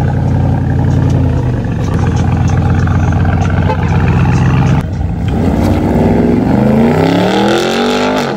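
Porsche Cayenne GTS Coupe's twin-turbo V8 running loud with a deep, steady exhaust drone as the car rolls out. About five seconds in, the engine note climbs steeply in pitch as it accelerates hard away.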